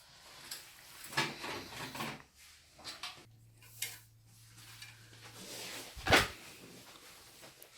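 Handling sounds of PC parts being fitted into a computer case: scattered plastic and metal clicks and rattles, with one sharp knock about six seconds in.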